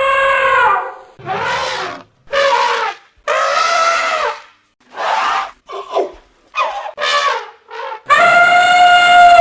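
Elephant trumpeting: a long call that ends in the first second, then a string of about eight shorter, separate trumpets and squeals, and another long, loud trumpet beginning about eight seconds in.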